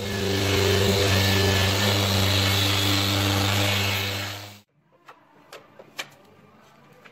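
Pressurised gas spraying from a cylinder onto the car's bodywork: a loud steady hiss with a hum under it that cuts off sharply about four and a half seconds in. A few light clicks follow.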